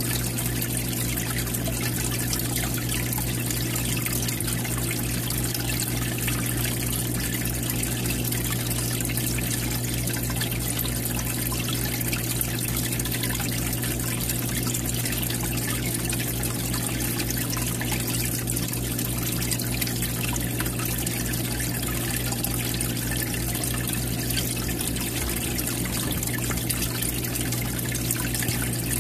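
Aquarium water trickling and splashing into the tank from the filter outflow, with a steady low hum underneath.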